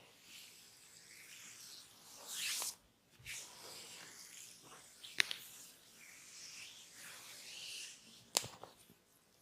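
Close-miked rubbing and scratching from a barber working on a client's head, quiet overall. A louder swish comes about two seconds in, and two sharp clicks follow, one about five seconds in and one near the end.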